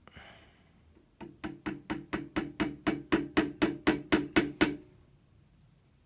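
A finishing nail tapped lightly and quickly into the wooden rifle stock, about fifteen sharp taps at roughly four a second, scoring a marked screw-hole spot as a guide for the drill bit. A short scrape comes just before the tapping starts.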